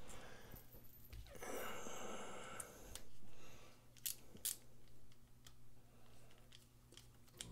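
Faint handling and rustling of small metal knife parts, then two sharp clicks about four seconds in as a small bit screwdriver is set into the pivot screw of a liner-lock folding knife during reassembly.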